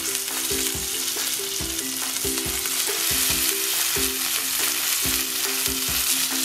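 Seasoned sardine fillets sizzling in olive oil on a hot cast-iron griddle as they are laid down; a steady hiss.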